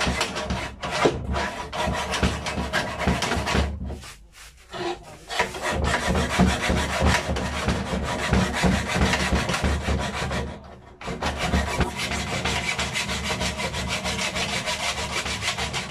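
Steel hand file on a guided file jig rasping back and forth across a steel knife blade in quick repeated strokes, cutting the edge bevel, with two short pauses, around four seconds in and around eleven seconds in.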